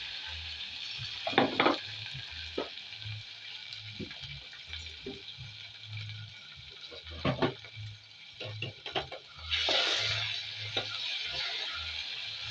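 Onions frying in hot oil sizzle steadily while a spoon stirs and knocks against the pan a few times. The sizzle flares louder for about a second near the end.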